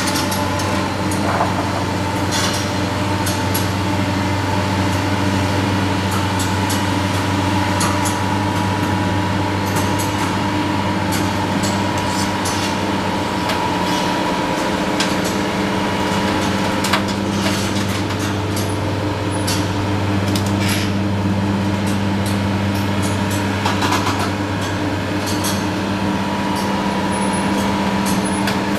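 Hydraulic excavators' diesel engines running steadily during building demolition, with scattered clanks and crashes of metal and debris as the bucket tears at the structure.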